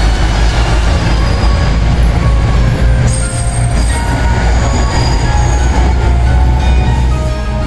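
KiHa 85 diesel multiple unit running past a station platform: a steady heavy low rumble of its diesel engines and wheels on the rails, with short high-pitched wheel squeals scattered over it.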